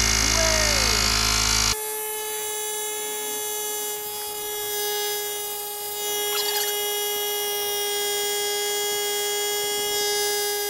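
Fanttik X8 Apex cordless tire inflator running, pumping air into a car tire toward its set pressure of 42 PSI. It is louder and fuller for about the first two seconds, then drops abruptly to a steady buzzing hum.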